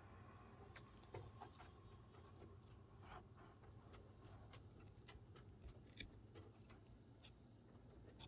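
Faint, scattered clicks and scrapes of a carving knife cutting into wood, a few sharper nicks among softer scraping, over a low room hum.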